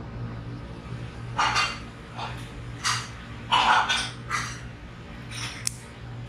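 Ginkgo nut shells being cracked and peeled apart by hand, a series of sharp, irregular clicks and cracks as shell pieces snap off and tick against a stainless steel bowl and the metal nut cracker.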